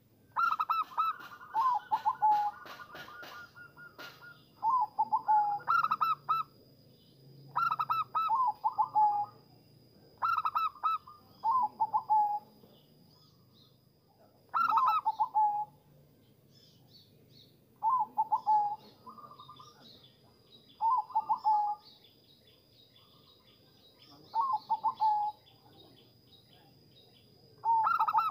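Zebra dove (perkutut) cooing: short phrases of rapid, stuttering soft notes, repeated about nine times with pauses of a second or two between them.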